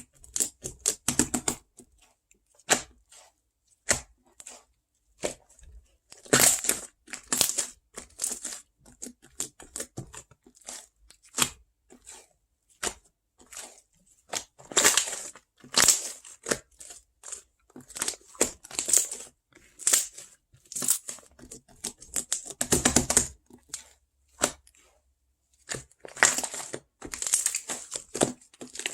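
Irregular crisp crackling and tearing sounds close to the microphone: short strokes with gaps between them, and several louder bunches of rustling along the way.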